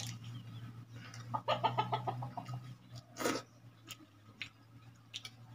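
A short run of quick, pitched animal calls about a second and a half in, over a steady low hum, then a brief sharp noise a little after three seconds.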